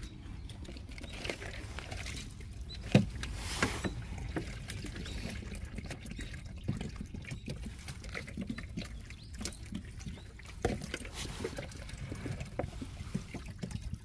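Outdoor ambience: a steady low rumble with scattered small clicks and rustles, the sharpest a single click about three seconds in.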